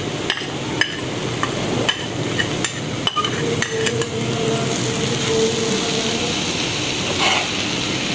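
Samosa filling frying in a pan with a steady sizzle, and several sharp knocks of a cooking utensil against the pan in the first few seconds as shredded chicken is added and stirred in.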